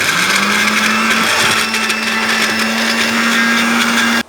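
Electric mixer grinder (mixie) running in one short burst to grind fried onions and green chillies with salt for chutney. The motor's hum rises briefly as it spins up, holds steady and loud, then stops suddenly after about four seconds.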